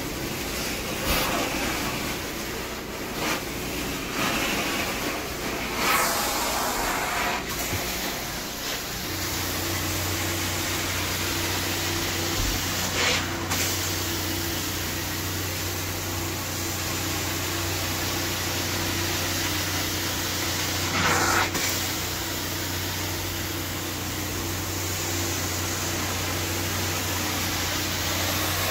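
Carpet extraction cleaner running with a steady hissing rush, with a few brief louder bursts; about nine seconds in, a steady low motor hum joins it.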